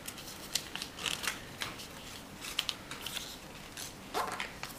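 A sheet of origami paper being folded and creased by hand into a smaller square, with soft crinkling and scattered sharp little crackles as the creases are pressed down.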